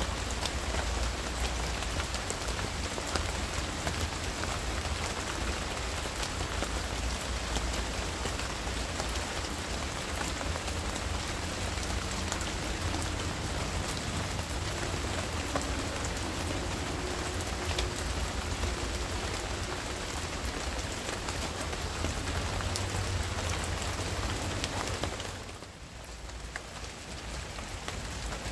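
Steady rain shower, an even hiss of pattering drops. It dips briefly about 25 seconds in, then builds back up.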